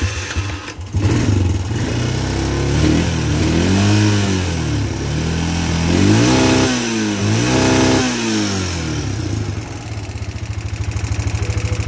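Honda four-wheeler's single-cylinder engine started on its electric starter, catching about a second in, then revved four times and settling to a steady idle near the end. It runs a little clacky, which the owner puts down to pushrods that need adjusting.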